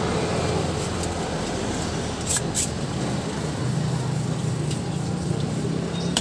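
Steady road-traffic rumble and hiss, with a couple of light clicks a little over two seconds in.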